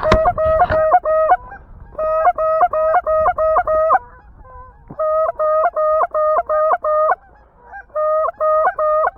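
Goose honks in fast, evenly spaced runs of short two-part notes, with brief pauses between runs. A single sharp crack comes right at the start.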